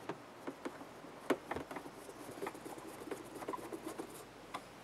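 A hand screwdriver turning screws into a hot tub pump's plastic bottom cover: small irregular clicks and scrapes of metal on plastic, the sharpest a little over a second in.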